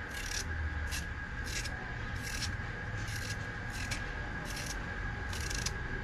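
A raw potato being peeled by scraping it with a small knife: short scraping strokes repeat about one and a half times a second.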